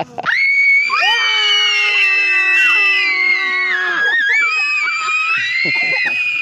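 Several people screaming together in long, high-pitched held screams, the voices overlapping and starting one after another; they dip briefly about four seconds in and pick up again.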